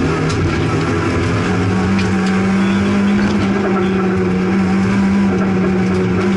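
Opel Astra GSI rally car's engine heard from inside the cabin, running hard on a rally stage; its pitch climbs about a second and a half in and then holds high and steady.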